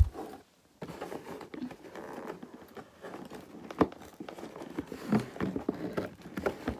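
Cardboard and plastic toy packaging being handled and worked at: uneven rustling and crinkling with scattered sharp clicks and a knock at the start.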